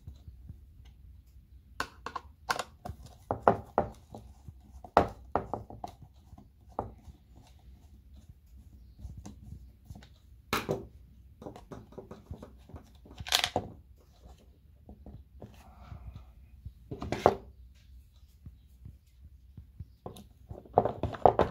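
Scattered sharp clicks and knocks of a screwdriver, then long-nose pliers, working a screw and the plastic roller bracket in a Samsung washing machine's plastic tub base.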